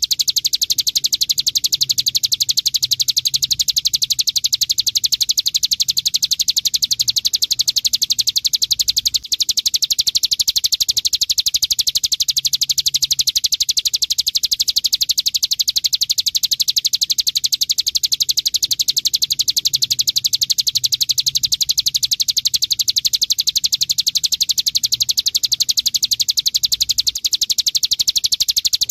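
Ciblek gunung, a mountain prinia, singing a loud, unbroken, very fast rattling trill, the machine-gun-like 'bren' song style, with one tiny break about nine seconds in.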